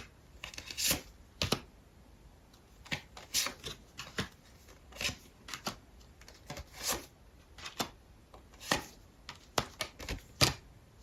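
Tarot cards being handled and laid out on a table: a string of irregular short slaps and rustles with quiet gaps between them.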